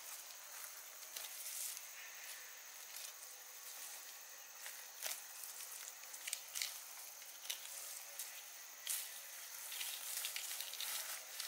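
Leaves and stems rustling and snapping irregularly as gloved hands pick through low undergrowth, with a steady high hiss in the background.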